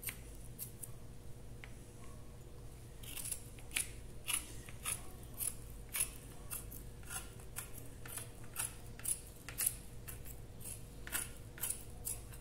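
Scissors snipping through a sheet of fibreglass mat. The cuts come as sharp snips, sparse at first, then about two a second from around three seconds in.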